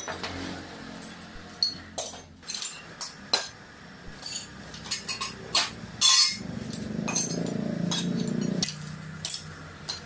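Metal tools and steel parts clinking and knocking sharply and irregularly, with a loud clank about six seconds in, over a faint steady machine hum. A louder low mechanical hum rises just after the clank and stops about two and a half seconds later.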